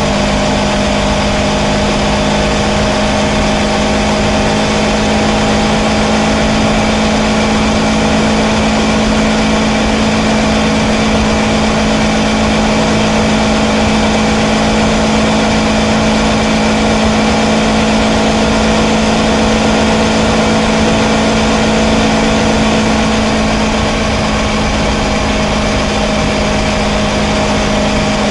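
Kawasaki Versys 650's parallel-twin engine running at a steady cruise, heard from on board the motorcycle, its pitch holding nearly constant and easing off slightly near the end.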